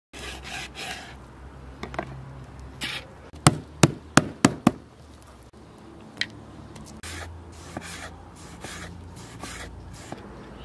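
A knife slicing grilled kebab on a wooden cutting board, then five quick, sharp blows of a meat tenderizer mallet pounding raw meat on the board, the loudest sounds here. Softer rustling of hands handling the meat follows.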